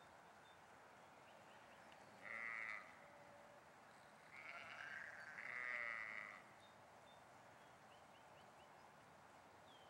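Sheep bleating: one short bleat about two seconds in, then a longer, louder bleat in two parts a couple of seconds later.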